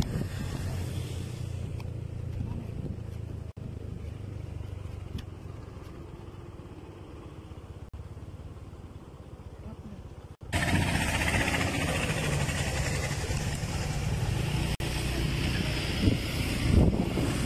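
Steady low rumble of a motor vehicle and road noise, then at about ten seconds in a sudden, much louder roar of wind buffeting the microphone.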